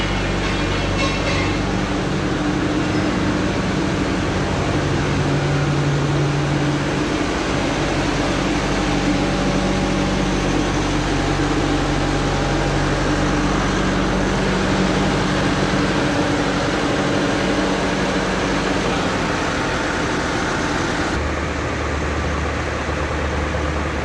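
Diesel engine of an Ajax ARGO 4000 self-loading concrete mixer running steadily, with a change in its low hum about three seconds before the end.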